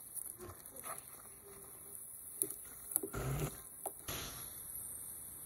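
Plastic spoon stirring and breaking down soft boiled potatoes in a pot of water: quiet squishing with scattered light taps, and one louder brief rush of noise about three seconds in.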